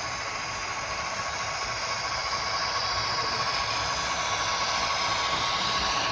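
HO scale model train running on the layout: a steady hissing rumble with a faint whine, growing a little louder as it goes.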